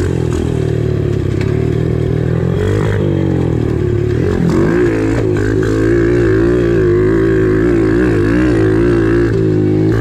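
Kawasaki KLX110 pit bike's small four-stroke single-cylinder engine running while being ridden, its pitch rising and falling as the throttle is worked.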